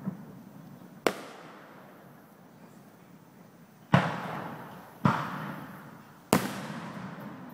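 Aerial firework shells bursting: a small bang at the start, then sharp bangs about one, four, five and six seconds in, the loudest about four seconds in. Each bang is followed by a rolling echo that fades away.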